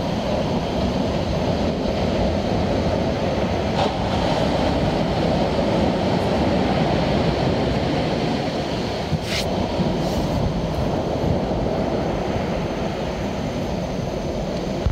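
Steady rumbling surf with wind noise on the microphone, and two brief sharp ticks about four and nine seconds in.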